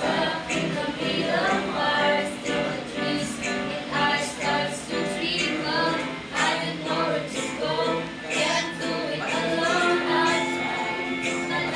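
Music with a singing voice over a steady accompaniment.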